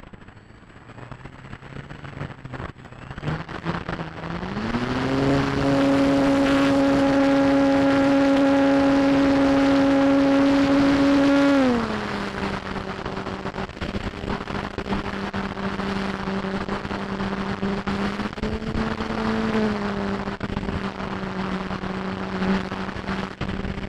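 RC model airplane's motor and propeller running: the pitch climbs as the throttle opens about four seconds in, holds steady, then drops to a lower, steadier drone about halfway through, with a short rise in pitch near the end. Gusty wind noise on the microphone runs underneath.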